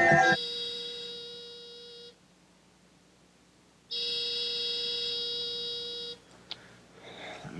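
Telephone ringing twice, a steady buzzing ring of about two seconds each with a pause of about two seconds between them, followed by a click and faint handling near the end.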